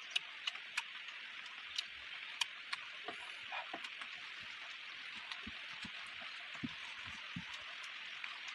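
Eating sounds of a person chewing food by hand, with scattered wet clicks and smacks and a few soft low thuds of chewing, over a steady background hiss.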